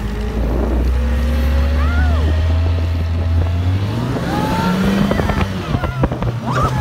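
Snowmobile engine running under way, a steady low hum whose pitch steps up about four seconds in as the machine picks up speed. Rough, uneven buffeting and knocks come in near the end.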